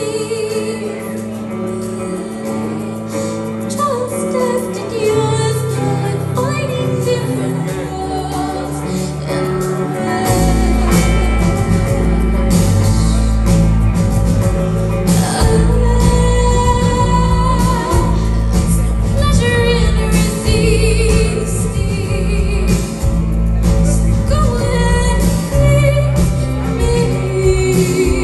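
Live rock band playing, a woman singing lead over electric guitars, bass, drums and keyboard. About ten seconds in the band comes in fuller and louder, with heavy bass and drums.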